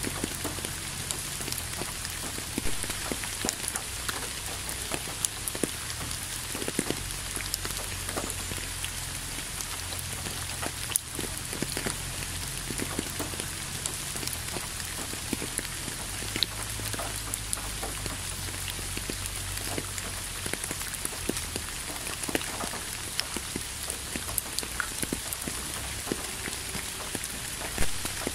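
Steady rainfall: an even hiss with many separate drop hits scattered through it, over a low rumble.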